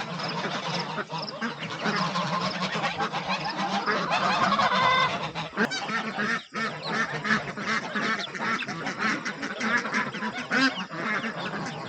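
A flock of domestic geese and ducks calling together, many overlapping honks and quacks with hardly a break, apart from a brief lull about six and a half seconds in.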